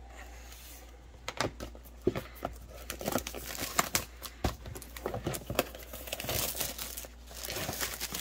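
Clear plastic shrink wrap being torn and peeled off a cardboard model-kit box, crinkling and crackling irregularly, starting about a second in and growing busier.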